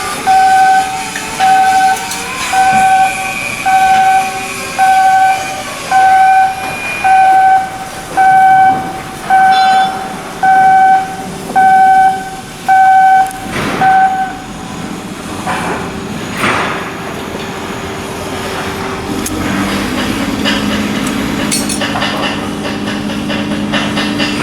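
Electronic warning beeper sounding a steady single tone about once a second, then stopping; a few metallic clanks follow, and a steady machine hum starts near the end.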